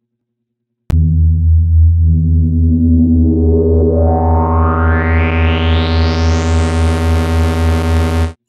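Synthesizer intro music: a loud, bass-heavy sustained synth chord starts suddenly about a second in and grows steadily brighter as it goes, then cuts off abruptly near the end.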